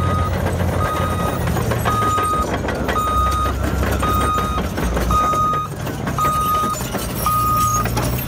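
Caterpillar D7R Series II bulldozer backing up: its back-up alarm beeps about once a second, each beep about half a second long, over the steady rumble of the diesel engine.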